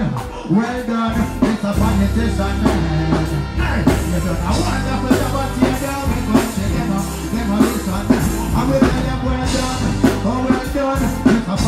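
Live reggae music through a stage PA: a man sings into a handheld microphone over a band with drum kit and a steady bass line.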